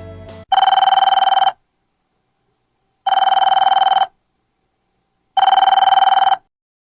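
A telephone ringing three times: each ring is a fast-trilling electronic tone about a second long, with a silence of about a second and a half between rings.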